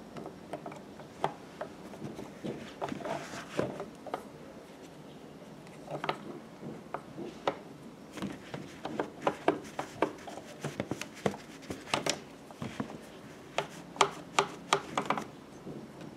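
Metal parts of a Pfaff 1245 industrial sewing machine's hook drive being handled and shifted by hand: irregular clicks, taps and light metal-on-metal rubbing, coming in quick clusters that are busiest in the second half.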